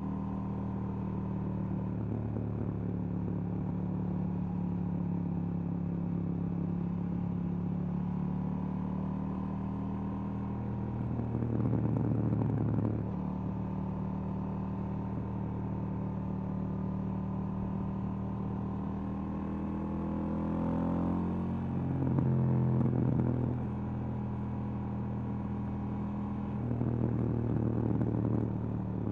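2018 KTM 790 Duke's parallel-twin engine through its stock exhaust, running at a steady note with three louder stretches of a few seconds each. The pitch rises as it accelerates into the second of them, about twenty seconds in.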